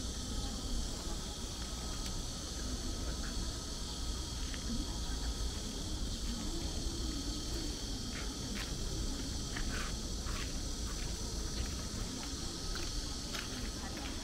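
Insects shrilling in a steady, continuous high drone, with faint voices of people talking some way off underneath.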